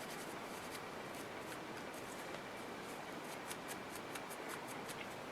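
Faint, quick scratchy strokes of a dry paintbrush's bristles brushed over a painted clay piece, coming more often in the second half.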